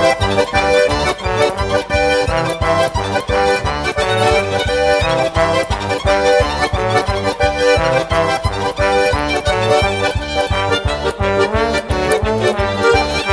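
Instrumental background music with a steady pulsing bass beat under a sustained melody line.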